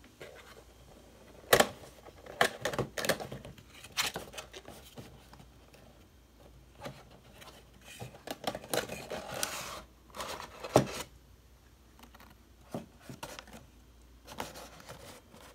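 Funko Pop cardboard window box being opened by hand: scattered clicks, taps and plastic crinkling as the top flap is lifted and the clear plastic insert holding the vinyl figure is slid out. A few sharper clicks stand out, one about a second and a half in and another just before eleven seconds.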